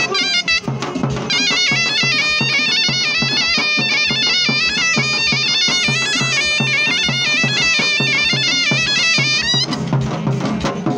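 Zurna, a Turkish wooden shawm, playing a fast, ornamented folk tune over a steady low beat. The tune cuts off sharply near the end.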